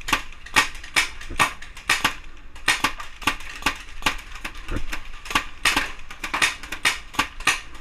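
Paintball fire: rapid, irregular sharp pops, several a second, with a brief lull about two and a half seconds in.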